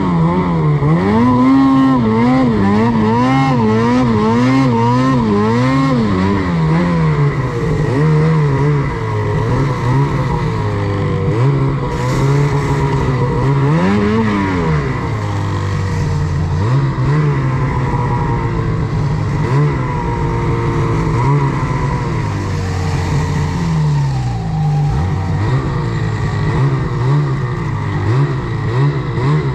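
Snowmobile engine running under throttle as the sled is ridden, its pitch rising and falling as the throttle is worked: quick, even swells for the first several seconds, then slower surges and dips.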